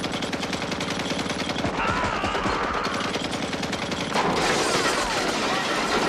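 Sustained automatic fire from a truck-mounted M60 machine gun, a rapid, steady stream of shots that grows louder about four seconds in.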